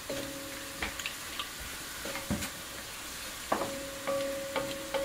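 Wooden spatula stirring diced pork and chicken in a cast iron wok, knocking and scraping against the pan over a steady sizzle. The wok rings briefly after the sharper knocks.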